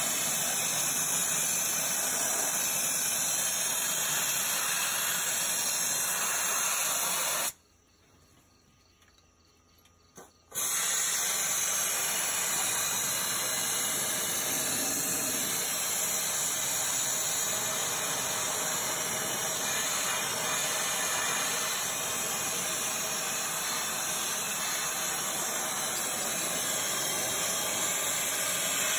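A power sprayer's cleaning wand jets a steady, hissing spray onto the engine's intake valley to wash off caked oil and grime. The spray breaks off for about three seconds about a quarter of the way in, then resumes.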